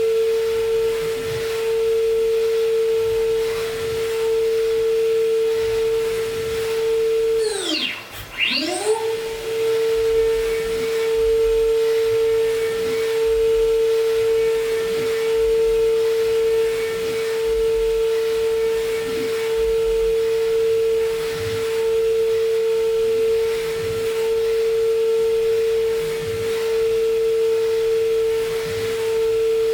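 Brother Speedio S500Xd1-5AX machining centre's spindle milling an aluminium impeller at high speed, a steady high-pitched cutting whine. About eight seconds in, the spindle's pitch falls steeply and climbs back up within a second or two, then the steady whine resumes.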